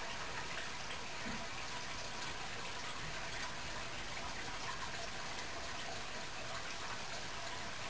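Steady rush of water circulating in an aquarium, from its filter and aeration, even and unbroken.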